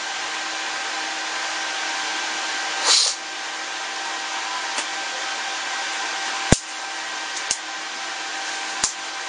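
Steady whir of a small electric motor, with a short rushing burst about three seconds in and three sharp knocks in the second half.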